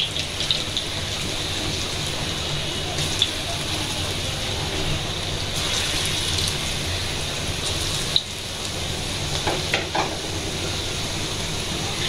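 Small piyaji (lentil-and-onion fritters) deep-frying in a pan of hot oil: a steady sizzle with crackling pops, and a brief sharp click about eight seconds in.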